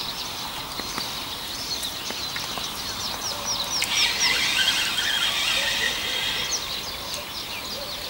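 Songbirds chirping, with many short calls. About four seconds in, a hissing rush of fishing line paying off a spinning reel during a feeder cast lasts a couple of seconds and is the loudest part.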